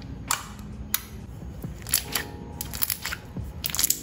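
Clear slime being pressed and squeezed between fingers, letting out sharp pops and clicks as trapped air bursts: single pops spaced through, then a quick run of pops near the end.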